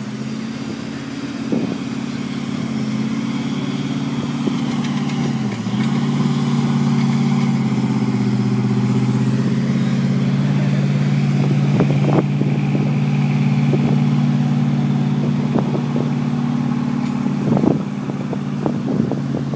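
Pickup truck engine held at high, steady revs as the truck works to get out of soft sand, dipping briefly about five seconds in. A few short knocks are heard.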